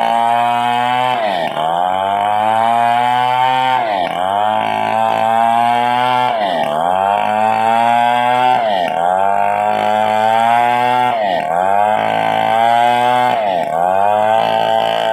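Motorised wood saw cutting through a 4-metre length of timber. The motor runs loud and steady, its pitch dipping sharply and recovering about every two seconds as the load comes on and eases.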